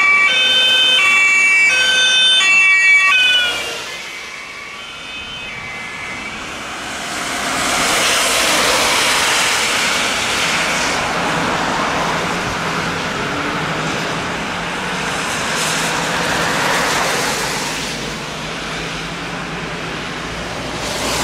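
German two-tone emergency siren (Martinshorn) on passing rescue vehicles, two notes alternating about twice a second, loud for about three seconds and then fading away. After that, tyres hissing on the wet road as traffic goes by, with a low engine hum toward the end.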